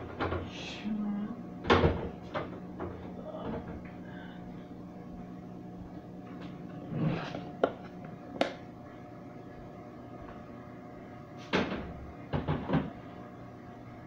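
Jars, bottles and containers knocking and clunking against the shelves of an open refrigerator as they are moved and put back, a few separate knocks with a quick cluster near the end.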